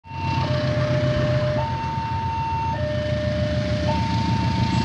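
Railway level crossing warning alarm sounding a two-tone electronic signal that alternates between a high and a low tone about once a second, over a steady low engine rumble.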